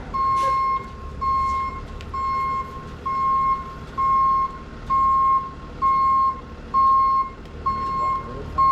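Tow truck's backup alarm beeping at an even pace, about one beep a second, over the low rumble of the truck's engine.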